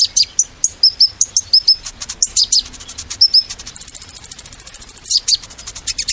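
Small songbird singing: quick, high chirps and short whistled notes, with a fast, very high trill of about twenty even notes near the middle that lasts a little over a second.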